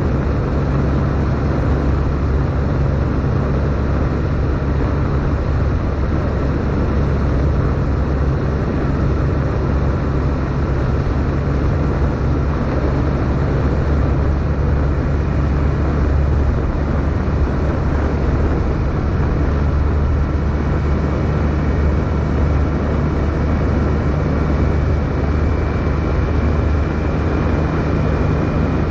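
Triumph Sprint GT's three-cylinder engine running at a steady cruise, with wind and road noise from the moving motorcycle.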